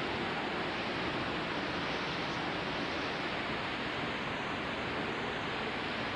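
Hurricane-force wind, about 75 mph with higher gusts, roaring steadily as a dense, even rush of noise.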